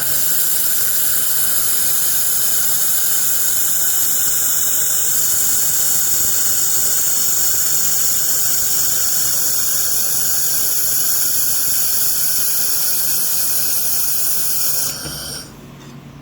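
A 3 kW handheld laser welding, cleaning and cutting machine working at the workpiece: a loud, steady, high-pitched hiss and squeal that cuts off about fifteen seconds in.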